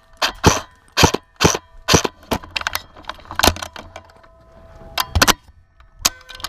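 Airsoft gun firing single shots: about a dozen sharp cracks at uneven spacing, roughly two a second over the first three seconds, then a few more spread apart.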